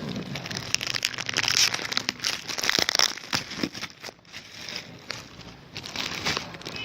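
Packaging crinkling and rustling with scattered crackles and clicks, as a boxed speaker is unwrapped and lifted out.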